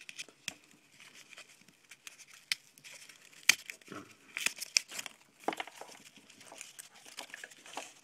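Paper band being torn and crumpled off a rolled nylon camera shoulder strap: irregular small tears, rustles and crinkles, with one sharp snap about three and a half seconds in.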